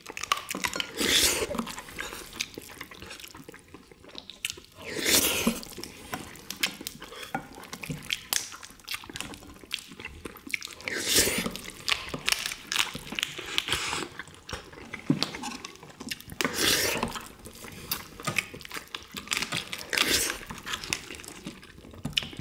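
People eating soy-sauce-marinated crab with rice: wet chewing and lip-smacking with many small clicks, and a louder wet burst about every four to six seconds.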